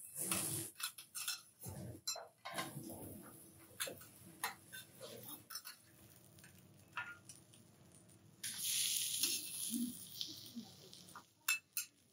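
Metal spatulas clicking and scraping on a steel teppanyaki griddle. About eight seconds in, a loud sizzle that lasts about three seconds as seafood goes onto the hot plate, followed by a few sharp taps.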